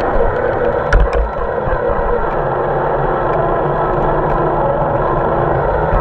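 Scale RC 4x4 truck driving over rough off-road ground, its electric drivetrain running steadily, with a few knocks about a second in.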